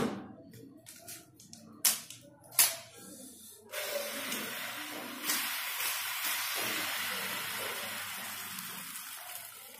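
Wheels of a Jonex Super Attack adjustable quad roller skate spun by hand, a steady whirring hiss from the free-spinning bearings that slowly fades as the wheels slow down, picking up again as another spin starts about five seconds in. A few knocks from the metal skate frame being handled come before it.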